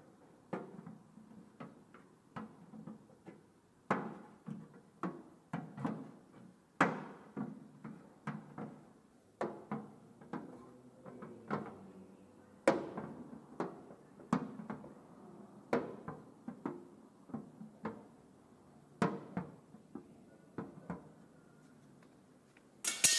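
Irregular light taps and knocks on a hollow aluminium car bodyshell, about one or two a second, each with a short ring. A brief sharp noise comes right at the end.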